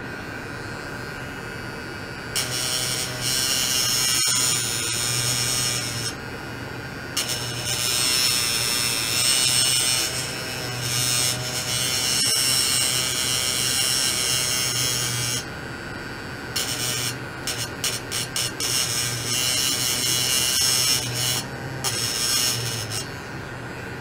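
Buzzing with a high whine from ultrasonic probes driven by a function generator (sweep and pulse oscillation), over a steady faint hum. It comes on about two seconds in, runs in stretches of a few seconds with short breaks, flickers on and off several times in the second half, and stops shortly before the end.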